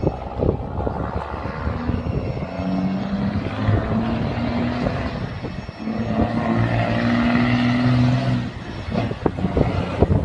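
Truck engine running with a steady low drone, in two stretches of a couple of seconds each with a short dip between them, over rumbling noise.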